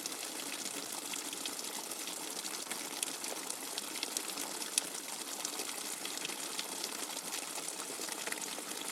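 Rainwater flowing steadily, a continuous rushing gush with scattered sharp drips and splashes.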